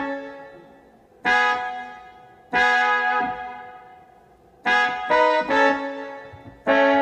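Electronic keyboard playing a trumpet-section patch: a phrase of harmonized brass chords moving in sixths and ending in thirds. Each chord fades after it is struck, with two quicker chords a little after the middle and a longer held one near the end.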